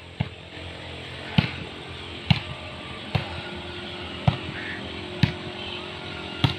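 A volleyball being struck by hand back and forth in a rally: sharp smacks about one a second, seven in all, over faint steady background noise.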